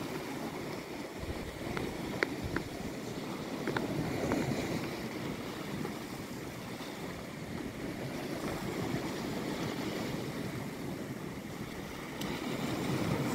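Waves breaking and washing over a rocky shoreline, with wind on the microphone. A few faint ticks come about two to four seconds in.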